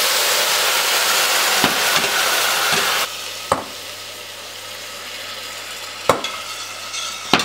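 Hot chicken stock poured into a pan of arborio rice in hot olive oil, sizzling loudly as it hits the pan, then dropping to a softer sizzle about three seconds in. A few sharp clicks sound over it.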